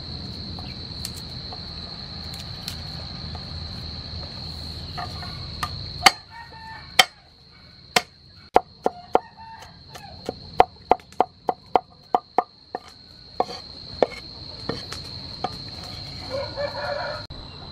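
Cleaver chopping peeled garlic on a wooden cutting board: a string of sharp knocks that starts about six seconds in, quickens to three or four a second, and then thins out. A steady high-pitched insect drone runs underneath.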